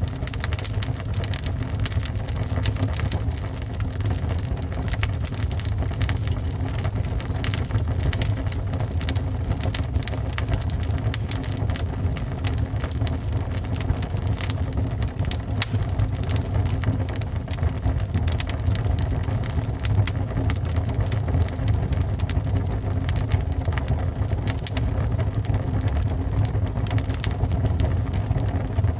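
Wood fire burning in a fireplace: a steady low rumble of flames with frequent sharp crackles and pops from the logs.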